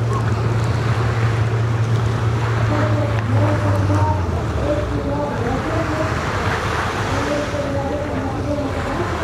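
A steady low engine hum, which stops about four seconds in, over wind and waves on the open sea.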